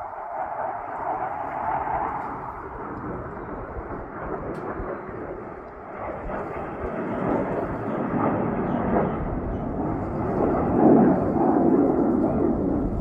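Fighter jets flying past, a loud jet roar that builds and drops in pitch, loudest about eleven seconds in.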